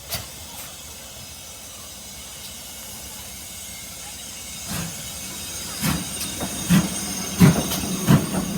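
Train coming along the platform: a steady hiss, then rolling noise growing louder about halfway, with a run of sharp clacks about 0.7 s apart as the wheels cross rail joints.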